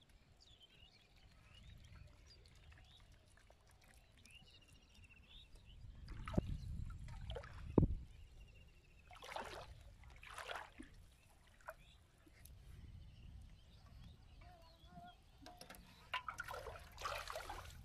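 Shallow marsh water splashing and trickling in short spells as a wet fishing net is lifted and handled and small fish are picked out by hand, with one sharper knock about eight seconds in.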